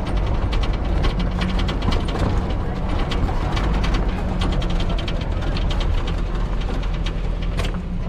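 Old utility vehicle's engine running at low speed, heard from inside the cab, with the bodywork rattling and clicking over a rough dirt track and a sharper knock near the end.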